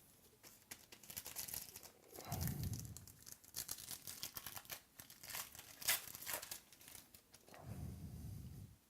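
Crinkling, rustling handling noise as trading cards, plastic sleeves and pack wrapping are shuffled and sorted by hand, with two heavier handling bumps about two and a half seconds in and near the end.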